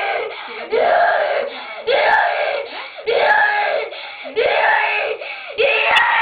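A young boy screaming in pain from a crushed, bleeding fingernail that is being doused with alcohol: a string of about five loud screams, one a little more than every second, each rising then falling in pitch.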